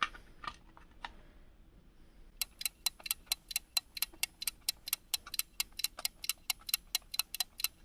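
Rotary selector dial of a DT830D digital multimeter clicking through its detents: a few separate clicks, then from about two and a half seconds in a fast, even run of about six clicks a second.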